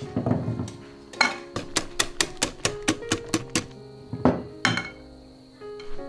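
A wire whisk clinking against the sides of a glass mixing bowl in quick stirring strokes, about a dozen at roughly five a second, then two more after a short pause. Background music plays underneath.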